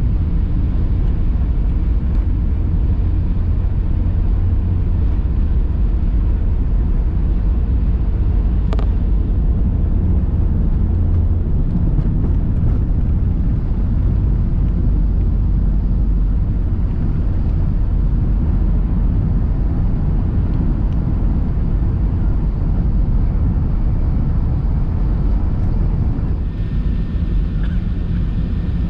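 Steady low rumble of an Airbus A380-800 heard from inside the economy cabin: engine and airflow noise, with a single sharp click about nine seconds in.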